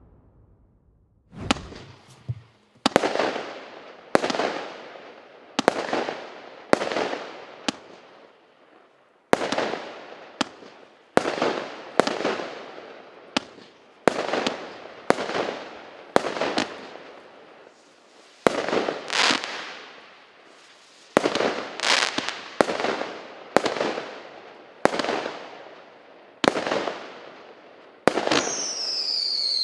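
A 'Sombrero' P7314 consumer firework cake (26 shots of 0.8 inch) firing its shots one after another: a sharp report roughly every second, each trailing off. Near the end a whistling comet goes up with a falling whistle.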